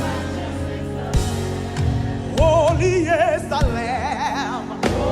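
Live gospel worship music: a band holding sustained low chords, with a few drum hits. A solo voice sings a melody with strong vibrato from about halfway through.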